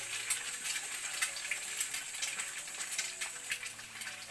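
Fried eggs on hash browns sizzling in a frying pan: a steady hiss with many small crackles and pops.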